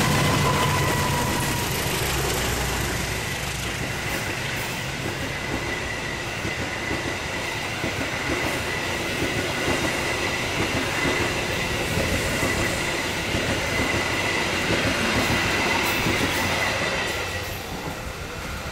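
A diesel locomotive's engine rumble fades over the first few seconds as it passes. Then a rake of newly built INKA executive passenger coaches rolls past at speed, with steady wheel-on-rail noise and a high-pitched steady wheel squeal. The sound drops off near the end as the train moves away.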